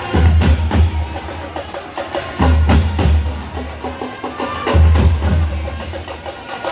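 Marching band percussion playing: a fast run of sharp drum and wood-block-like strikes over a deep low drum beat that swells roughly every two and a half seconds.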